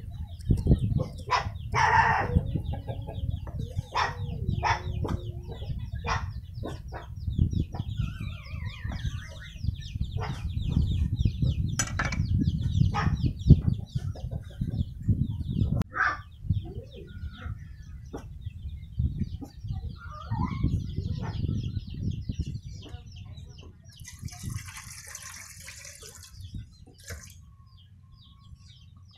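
Cleaver knocking on a round wooden chopping block as green onions are chopped, an irregular run of knocks that stops about halfway through, with birds calling in the background.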